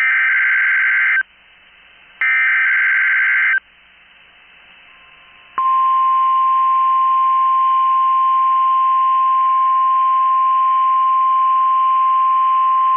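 NOAA Weather Radio Required Weekly Test: two bursts of SAME digital header data, each a buzzing burst about a second long with a short gap between, then about five and a half seconds in a steady 1050 Hz warning alarm tone starts and holds.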